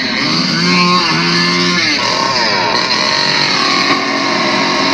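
A motor revving, its pitch sliding down and back up again and again.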